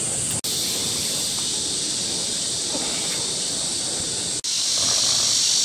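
Steady, high-pitched insect chorus buzzing without a break in rhythm. It cuts out for an instant twice, the second time about four seconds in, after which it is a little louder.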